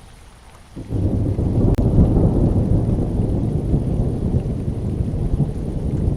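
Thunder in a rainstorm: a loud low rumble breaks in suddenly about a second in, with a sharp crack shortly after, and rolls on over the rain.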